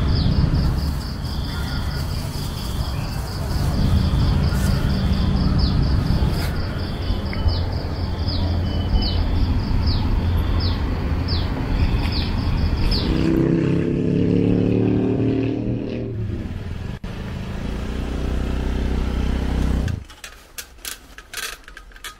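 Motor vehicle engine running, its pitch rising as it accelerates about two-thirds of the way through. Near the end it cuts off suddenly to a quieter scene with light clicks.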